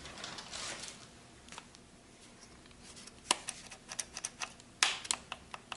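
Handling noise while unpacking a cordless reciprocating saw: a brief rustle of packaging, then a scatter of light clicks and small knocks, the sharpest about five seconds in.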